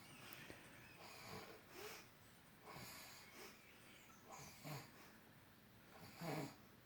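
A man snoring in his sleep: a faint, irregular series of short snorts and wheezy breaths, the loudest about six seconds in.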